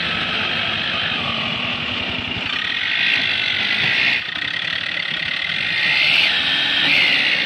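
Mahindra 595 Turbo tractor's diesel engine working hard while pulling a heavily loaded soil trolley through loose dirt. It swells louder twice, about three seconds in and again near the end.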